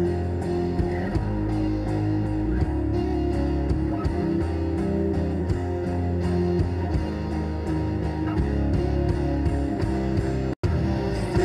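Rock music with guitar and a steady beat, cutting out for an instant near the end.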